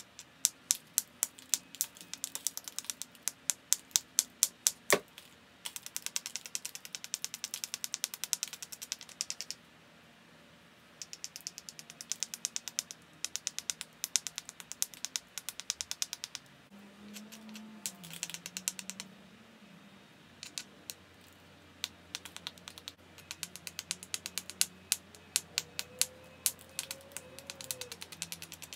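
A small handheld knapping tool ticking and scraping rapidly along the edge of a Flint Ridge flint biface, working the edge during thinning. The sound comes as runs of sharp clicks, several per second, broken by short pauses.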